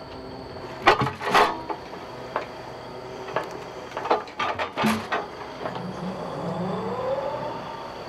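Log loader grapple setting a log onto a stacked pile: a string of sharp knocks and clunks of wood and steel in the first five seconds. Then the loader's hydraulics and engine hum, with a tone that rises and falls away near the end.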